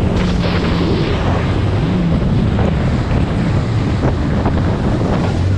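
Jet ski running at speed over choppy water: a steady low engine hum under heavy wind buffeting the microphone, with hull slaps and spray.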